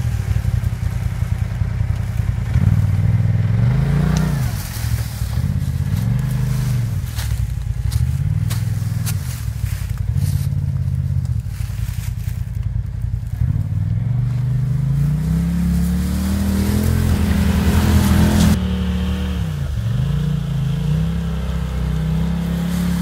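Polaris RZR XP Turbo side-by-side's turbocharged twin-cylinder engine running at low speed, revving up and down repeatedly as it crawls over rough ground. Dry leaves and twigs crackle under the tyres.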